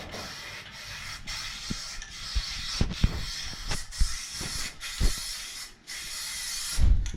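Spray primer hissing out in bursts, broken by short pauses several times, with a few light knocks in between.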